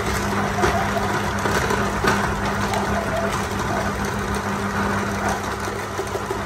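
Two-belt-driven cast-iron size-32 fish grinder running steadily with a constant electric-motor hum while fish heads and bones are forced through it, with scattered sharp cracks as bones are ground.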